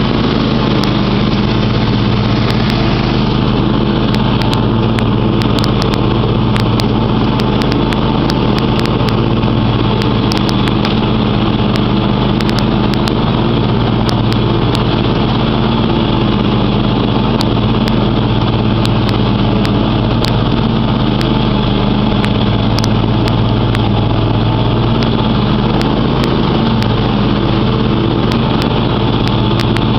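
John Deere X500 riding mower's 25 hp engine running steadily at an even speed while the mower is driven across the lawn.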